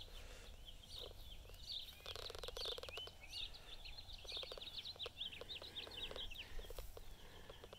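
Small birds singing, a steady run of short, quick chirps, with brief clusters of clicks about two seconds in and again a little after five seconds.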